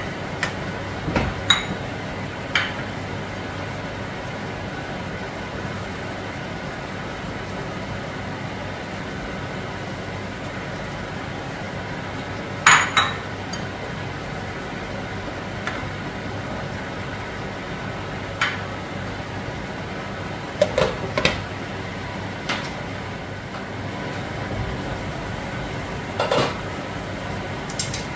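A cooking ladle and bowl clinking and knocking against a pot of boiling soup, about eight separate clinks spread across the stretch, with the loudest pair near the middle. Under them runs a steady hum and hiss.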